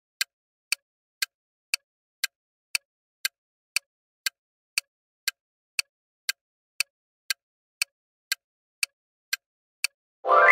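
Quiz countdown timer sound effect: short clock-like ticks, two a second, counting down the seconds. Near the end a bright chime rings out as the answer is revealed.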